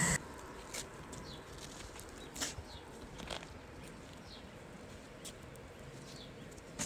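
Faint, sparse scuffs and clicks of a long-handled crack-filler squeegee and work boots on asphalt, spread out every second or so, with a few faint bird chirps.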